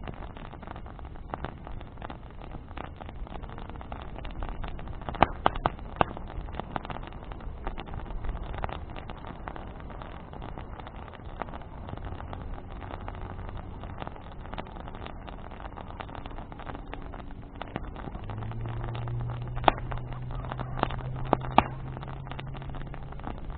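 Wood bonfire burning with a steady crackle and scattered sharp pops, the loudest about five seconds in and again near the end. A low, steady engine hum joins about three quarters of the way through.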